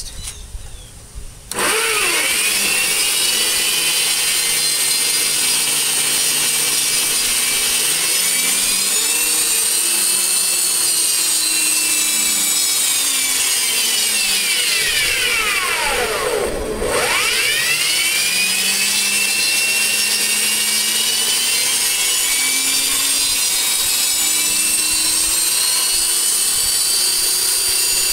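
Grizzly benchtop bandsaw switched on and running free with no cut, starting abruptly about a second and a half in. It keeps up a shrill, squealing whine whose pitch wavers and swoops down and back up about two-thirds of the way through. This is a test run after its sticking brass blade-guide part and tensioner were lubricated with silicone spray.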